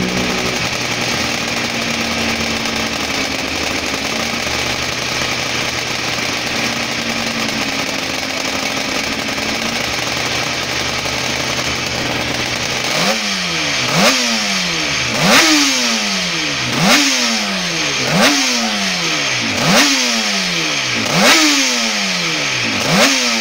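Barry Sheene's Suzuki 500 square-four two-stroke race bike warming up on its stand. It runs steadily for about thirteen seconds, then the throttle is blipped about eight times, each sharp rise in revs dying straight back down, roughly one every second and a half.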